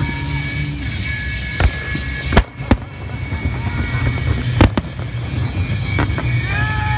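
Aerial fireworks shells bursting overhead: several sharp booms, the loudest a pair about a third of a second apart just over two seconds in, another pair a couple of seconds later and a weaker one near the end.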